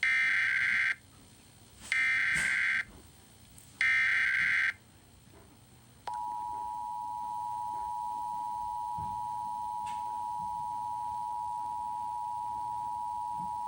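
Emergency Alert System test signal: three identical bursts of SAME header data tones, each about a second long and about two seconds apart, then about six seconds in the steady two-tone EAS attention signal starts and holds.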